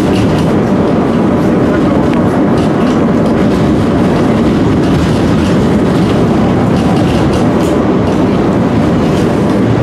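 Tram running along its rails: a loud, steady rumble of wheels and running gear with faint irregular clicks.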